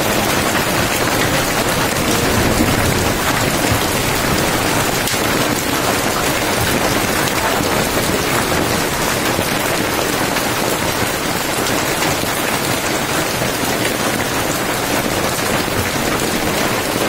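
Hail mixed with heavy rain pelting a road: a dense, steady patter of countless small impacts.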